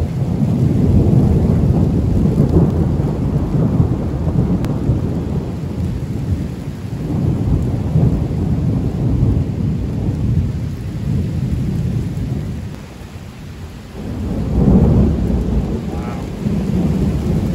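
Thunder rumbling in long rolling swells, one after another, the loudest peal near the end, with rain falling steadily underneath.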